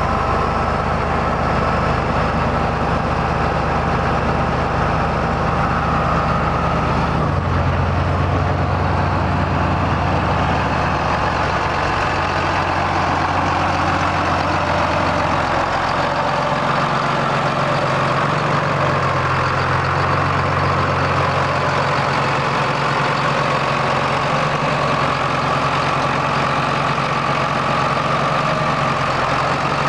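John Deere 8410 tractor's six-cylinder diesel engine idling steadily. Its low hum changes tone about seven seconds in.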